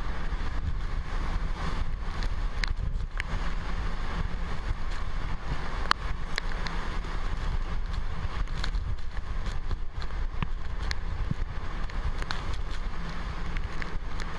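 Typhoon-force wind and driving rain blowing steadily, buffeting the microphone with a heavy low rumble. Scattered sharp knocks and clicks, the loudest about six seconds in.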